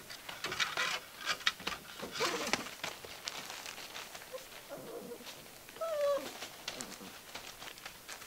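Gordon Setter puppies scrabbling and pawing at newspaper and the wooden edge of their box, a run of clicks, scratches and rustles, with a short, wavering, high puppy whine about six seconds in.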